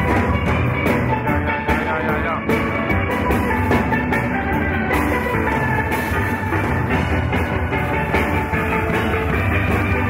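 Steel orchestra playing a tune, steelpans carrying the melody over drums.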